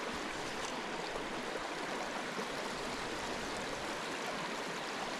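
Small, shallow stream running over rocks in a riffle: a steady, even rush of flowing water.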